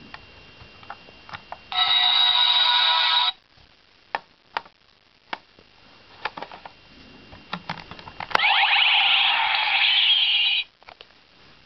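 Kamen Rider V-Buckle transformation belt toy playing its electronic sound effects through its small speaker: a burst of about a second and a half with steady tones, then, after several plastic clicks from handling the buckle, a longer burst full of rising sweeps. Both start and cut off abruptly.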